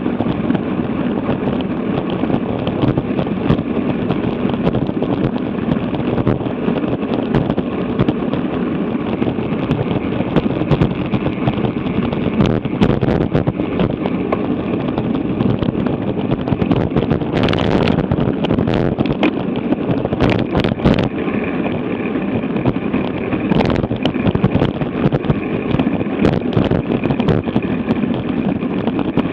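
Wind rushing over an action camera's microphone while cycling at about 25 mph: a steady, loud rush, with a few short clicks and knocks in the second half.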